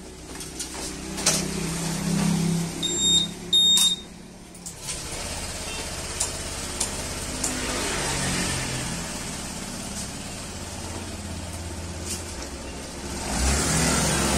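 Two short electronic beeps, then the Honda Vario 150 scooter's single-cylinder engine starts about five seconds in and idles steadily. Near the end it revs up as the scooter pulls away.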